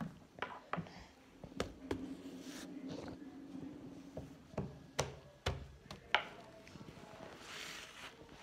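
Scattered light taps and knocks of a toddler's hands on a tabletop and the pages of a picture book, with a low steady hum for a couple of seconds about two seconds in.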